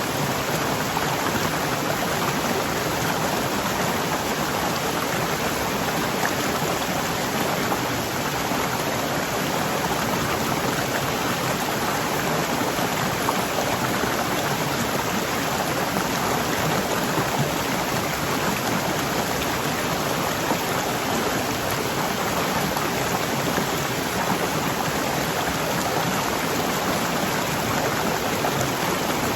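Waterfall rushing steadily, a dense, even roar of falling water with no change in level.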